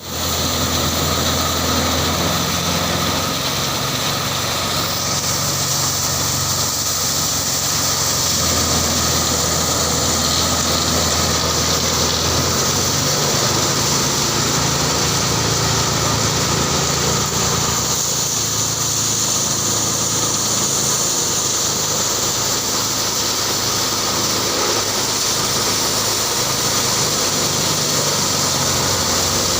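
Engine-driven power thresher running steadily, with a continuous low engine hum under a loud high-pitched hiss and whir from the threshing drum.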